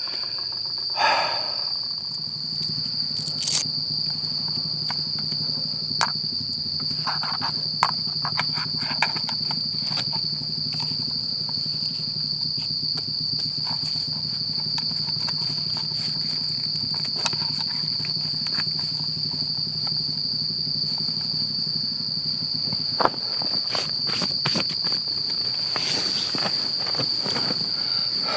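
Insects trilling in one steady high-pitched tone, with scattered small clicks and rustles of handling. A low hum runs underneath and stops about five seconds before the end.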